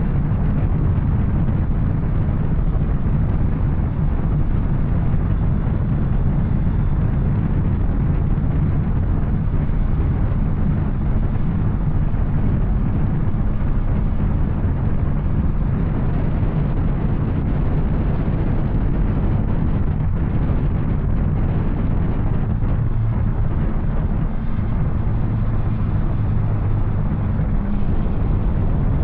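Yamaha Tracer 900's three-cylinder engine running under way through an Arrow exhaust, a steady loud low rumble.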